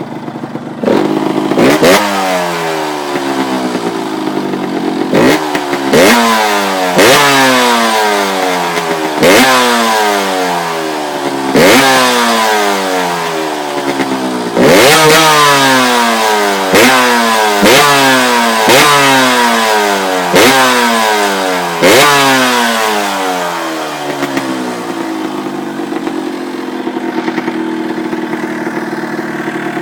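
Yamaha DT125R two-stroke single-cylinder engine, breathing through a cut-down Big One rear exhaust pipe, revved in about a dozen sharp throttle blips. Each blip rises quickly and falls back slowly. It drops back to a steady idle near the end.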